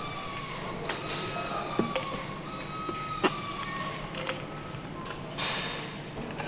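Metal engine parts clinking a few sharp times as they are handled during hand assembly, over a steady workshop hum, with a short hiss about five and a half seconds in.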